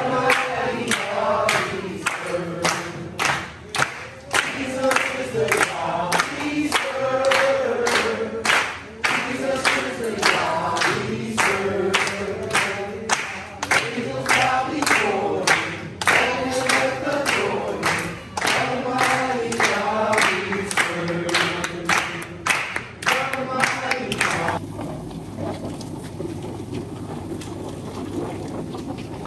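A group of people singing together and clapping in time, about two claps a second. The singing and clapping stop suddenly about 24 s in, leaving a steady hiss of outdoor noise.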